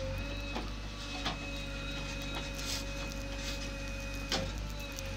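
JCB 3DX backhoe loader's diesel engine running steadily under load with a steady high whine, as the backhoe digs earth; a few sharp knocks from the working arm and bucket, the loudest about four seconds in.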